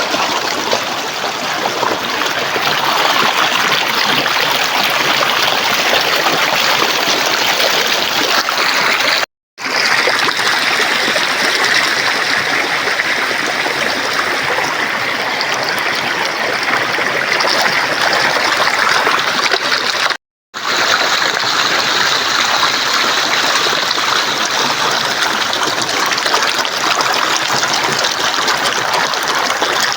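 River water flowing steadily, broken by two brief silences, about a third and two thirds of the way through.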